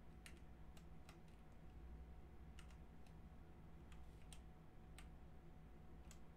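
Faint computer keyboard keystrokes: a handful of separate key clicks at uneven intervals over a low steady room hum.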